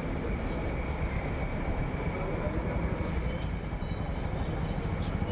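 Knife blade scraping scales off an Atlantic tripletail in short, irregular strokes, over a steady low rumble.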